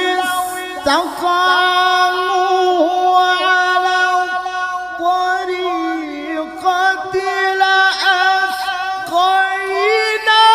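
Man reciting the Qur'an in the melodic mujawwad style into a microphone, drawing out long, ornamented notes. The pitch climbs near the end.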